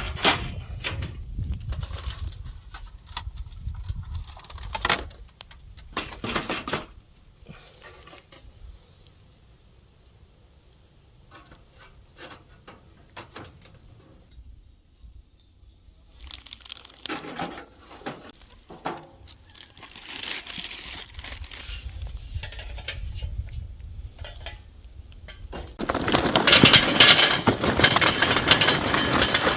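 Rustling and crinkling handling noises with scattered clicks and knocks, like packaging and cooking gear being handled, over a low rumble. About 26 seconds in, a longer, louder stretch of rustling noise starts.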